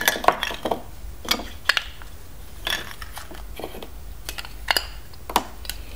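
Hard plastic LEGO DUPLO bricks and play-food pieces clicking and knocking together as they are handled and set down on a table, in a string of short, irregular clicks.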